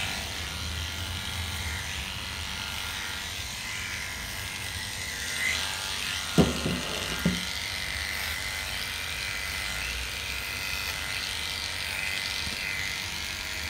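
Electric dog-grooming clippers with a number 10 blade under a slip-on comb running steadily as they cut through a dog's coat. Two short knocks come about six and seven seconds in.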